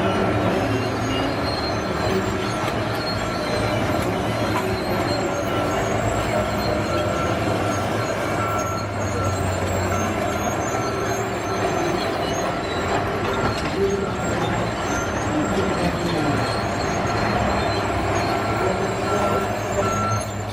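Heavy wood-cutting machinery running steadily, a dense mechanical noise with a thin, steady high whine over it.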